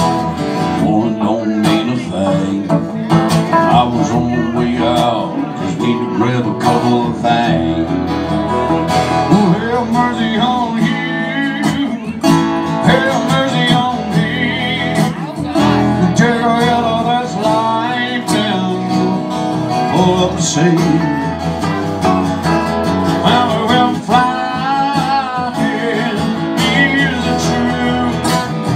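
Live country music: a man singing into a microphone to strummed acoustic guitar, amplified.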